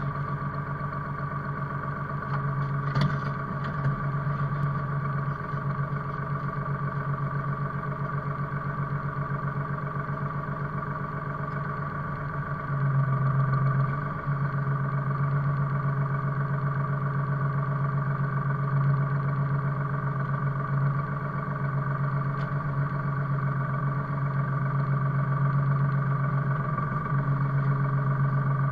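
Forest machine's diesel engine running steadily, heard from inside the cab, with a steady high whine above it. There is a knock about three seconds in, and the engine gets louder under load for a moment about 13 seconds in and again near the end.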